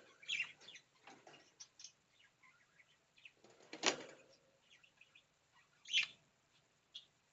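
Small pet birds chirping faintly among short rustles, with two louder brief noises about four and six seconds in.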